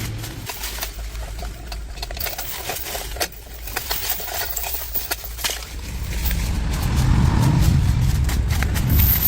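An engine running with a low hum. It eases down at the start and builds up again from about six seconds in, with scattered clicks and knocks in between.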